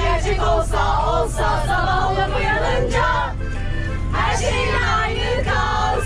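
A group of women singing together along with music, with a steady low rumble underneath.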